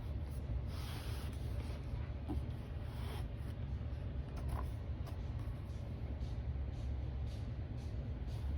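Steady low hum with a few soft, faint rustles, about one and three seconds in, of a keyboard's packaging being handled.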